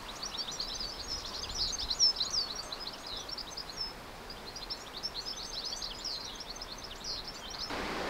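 Small birds chirping and twittering, a quick run of many short high calls over a faint outdoor background. A wider rush of noise rises near the end.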